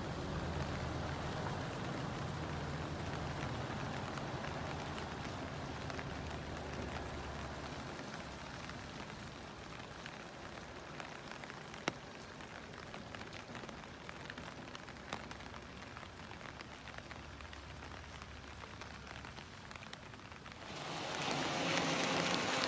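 Rain falling steadily on wet pavement, with the low hum of a heavy tractor truck's diesel engine running under it in the first few seconds. The rain grows louder and brighter near the end.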